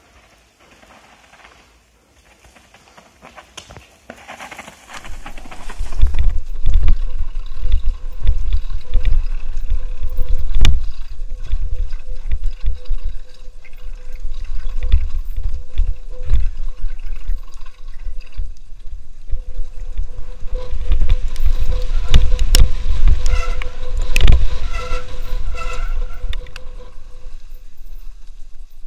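Mountain bike descending a rough forest trail: wind rumbling on the microphone, with the bike rattling and knocking over rocks and roots. It starts about six seconds in after a quiet start, and a faint steady tone runs through much of the ride.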